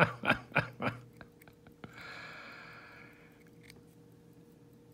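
Small parts of a disassembled wafer lock being handled: light clicks and a short soft scrape as the core and wafers are fitted back together. A brief mutter comes in the first second.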